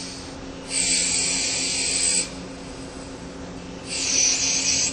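Okuma LT 300 CNC lathe turning a metal part: two spells of loud, high-pitched hissing cutting noise, one starting about a second in and lasting about a second and a half, the other near the end, over a steady low machine hum.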